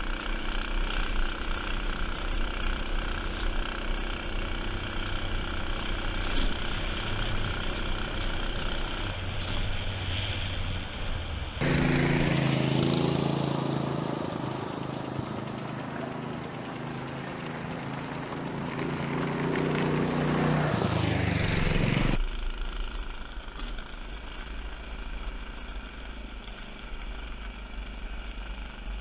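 Go-kart's single-cylinder Honda GX engine running under way, heard from on board. About twelve seconds in the sound cuts to the kart heard from the roadside, its engine note sweeping as it comes near and again as it goes away. About ten seconds later it cuts back to the onboard engine sound.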